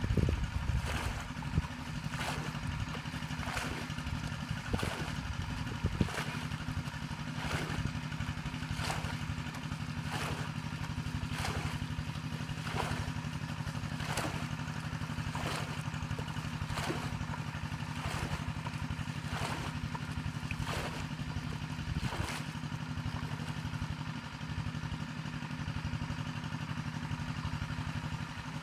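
Bucket bailing water out of a muddy pond: a splash with each scoop-and-throw, evenly a little over a second apart, stopping about three-quarters of the way through. A small engine drones steadily underneath.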